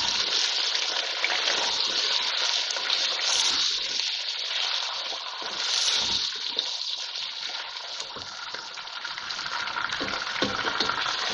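Boneless beef chunks and sliced onions sizzling steadily in hot oil, stirred with a wooden spatula that knocks against the pot now and then. The meat is being seared until it changes colour.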